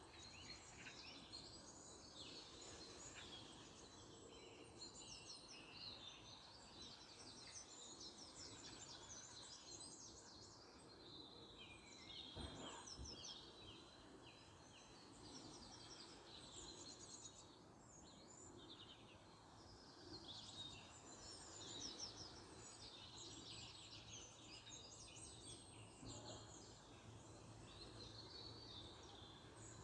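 Faint outdoor birdsong: several small songbirds chirping in quick repeated notes, over a low background hush, with one faint knock about halfway through.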